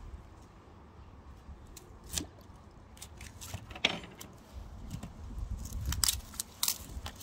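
Garlic being broken apart and peeled by hand: dry papery skins crackling and rustling, with scattered small clicks and a longer scratchy rustle about four seconds in.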